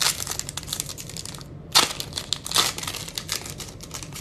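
Foil wrapper of a Bowman Platinum baseball card pack crinkling and tearing as it is pulled open by hand, a dense run of crackles with louder bursts at the start and twice around the middle.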